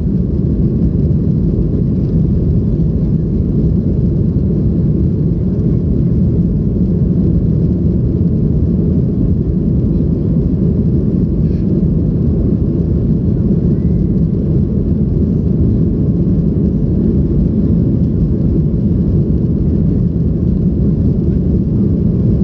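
Steady low rumble inside a Boeing 737's cabin during the climb after takeoff: engine noise mixed with the rush of air over the fuselage, even throughout.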